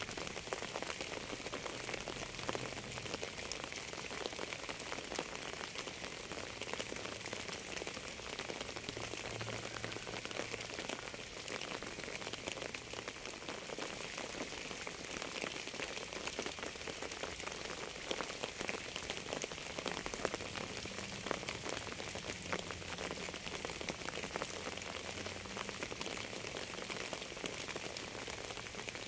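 Steady rain, a constant hiss dense with the ticks of individual drops.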